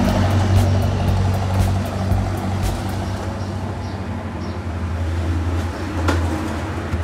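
Background music with sustained low bass notes.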